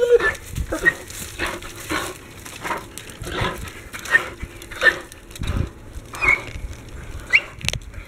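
Large dog biting and tugging at a standing sapling branch: irregular crunching and crackling of wood, a heavier knock about five and a half seconds in and a sharp snap near the end. The branch is too thick for the dog to break off.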